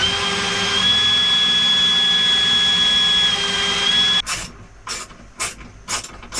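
Power drill running for about four seconds with a steady whine that shifts slightly in pitch, then cuts off; it is followed by five short rasping strokes about half a second apart, from a ratchet strap being cranked tight.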